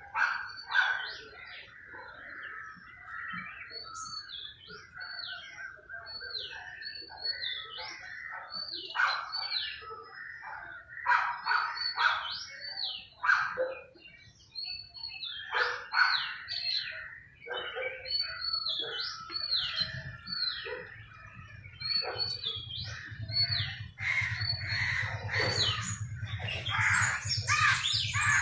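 Small songbirds chirping busily, with many short, repeated chirps and hooked calls that overlap one another. A low steady hum comes in about two-thirds of the way through.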